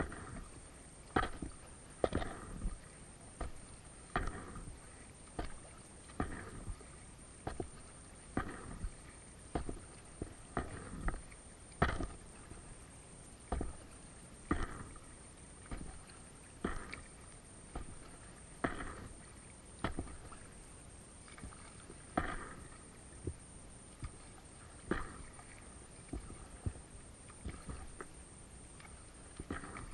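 Kayak paddle strokes, the blades dipping and splashing in calm water beside an inflatable kayak, about one stroke a second in an uneven rhythm.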